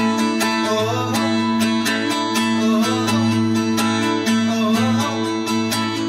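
A band playing live: an acoustic guitar is strummed in a steady rhythm, with regular drum strikes over low held notes.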